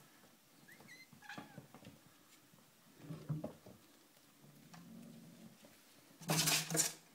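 Five-week-old Bengal kittens giving a few short, high squeaking mews about a second in, with some lower cat sounds after. Near the end comes a loud burst of rustling noise.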